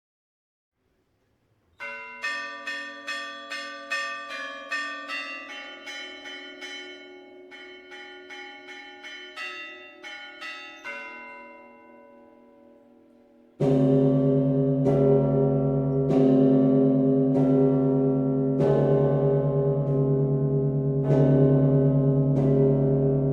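Russian Orthodox church bells rung by hand for a feast-day peal. After a short silence the small high bells start a quick ringing pattern, about three strokes a second, that slowly dies away. About 14 s in the big bells join loudly, with heavy strokes about once a second over a deep humming ring.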